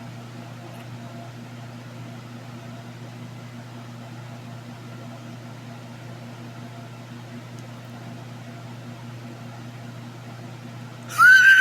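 Steady low electrical hum of a motor or appliance. Near the end, a loud high-pitched whine or whistle starts abruptly, bending slightly in pitch.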